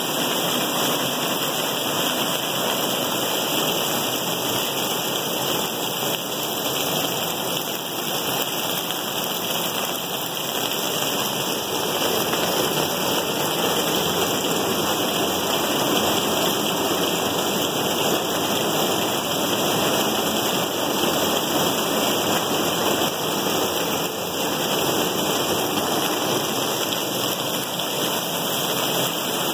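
Steady rain falling on a 10 mm multiwall (cellular) polycarbonate roof, heard from underneath as an even, dense patter that does not let up.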